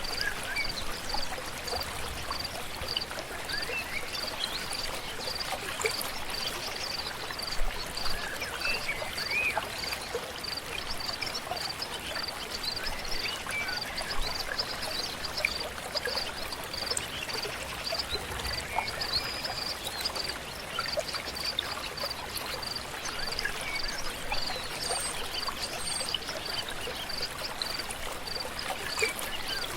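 A stream or river flowing steadily. Over it a high call pulses evenly about twice a second, and short bird chirps come and go.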